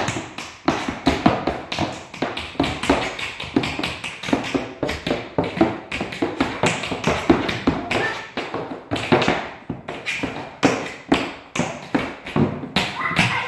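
Two children tap dancing in tap shoes on a hard floor: a rapid, irregular clatter of metal taps and stamps.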